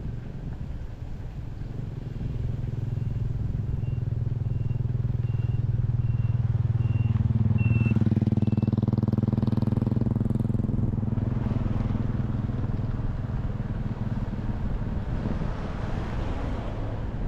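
A vehicle driving along a road: a steady low engine hum with road noise that swells and then eases off. Through the first half there is a series of short high beeps, a little more than one a second, growing louder before they stop.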